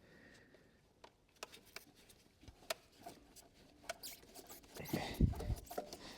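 Scattered small clicks, scrapes and rattles of hands and tools working a line loose in a car's engine bay, with a few heavier knocks about five seconds in.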